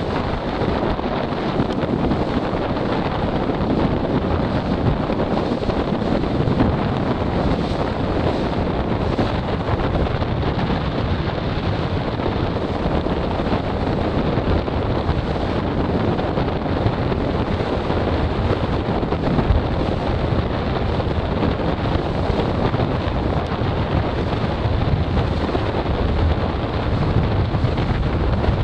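Wind buffeting the microphone: a steady, loud, low rush with no distinct events.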